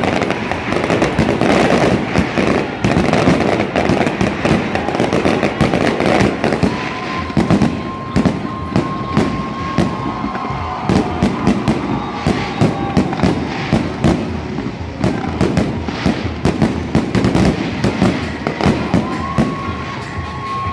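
Fireworks display: a dense, unbroken run of bangs and crackling from aerial shells and ground fountains going off in quick succession.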